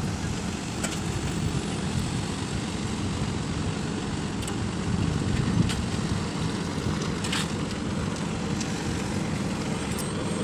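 Steady low rumble of heavy diesel road-building machinery running at a road-paving site: a raised tipper truck, an asphalt paver and a road roller, with a few faint clicks.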